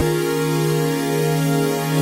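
Synthesizer holding a steady electronic chord, played in reverse, with a single held low note under several higher tones; the chord changes just as it begins and again just as it ends.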